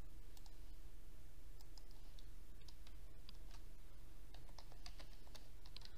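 Soft computer keyboard keystrokes and mouse clicks, a scattering of separate light clicks, over a steady low hum.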